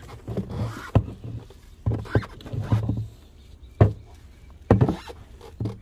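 Small garden shovel digging and turning compost in a plastic bin: rustling of dry leaves and cardboard, broken by irregular sharp knocks of the tool, about eight of them.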